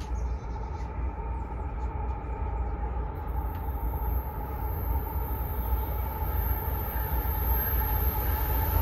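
CSX freight train's GE diesel locomotives approaching, a steady low rumble slowly growing louder. A high thin whine comes in about three seconds in and holds.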